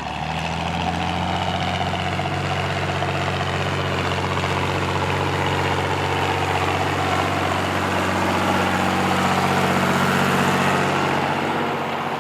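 John Deere 3140 tractor's six-cylinder diesel engine running steadily under load while pulling a four-furrow plough, its pitch holding even throughout. The sound comes in abruptly at the start and eases slightly near the end.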